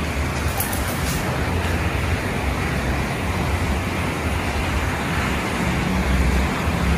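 Steady hiss and low rumble of heavy rain heard from inside the room, with a few faint clicks about a second in.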